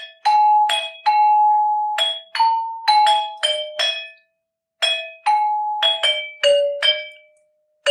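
A tune of bell-like mallet-percussion notes, like a glockenspiel or marimba, about fifteen single struck notes each ringing and fading, with two short pauses about halfway through and near the end.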